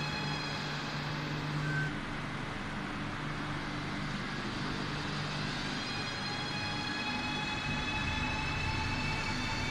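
Renfe Cercanías Civia electric commuter train, its traction equipment giving a steady electric whine over a low hum. The whine fades about two seconds in and returns with a rising pitch around six seconds in.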